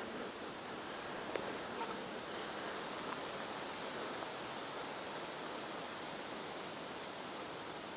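Steady outdoor background hiss with a few faint ticks or rustles.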